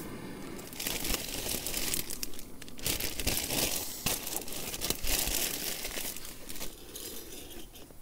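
Clear plastic zip-lock bags crinkling as they are pulled open and rummaged through by hand, in about four bursts of rustling.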